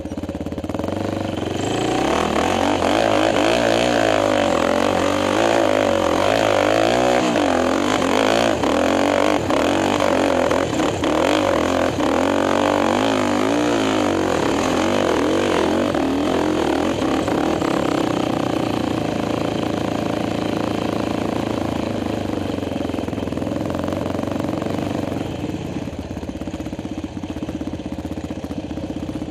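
Quad (ATV) engine being ridden hard over sand dunes, its pitch rising and falling with the throttle. It is busiest and loudest through the first half, then settles into a steadier, slightly quieter run, heard from a helmet-mounted camera.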